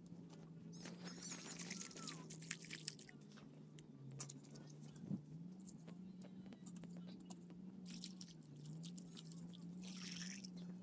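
Washing leafy greens in a metal pot: water poured from a plastic jug splashes onto the leaves, the wet leaves crunch as they are handled, with a few sharp knocks and clinks from the pot and an aluminium tray, and more splashing near the end as a hand swishes the leaves.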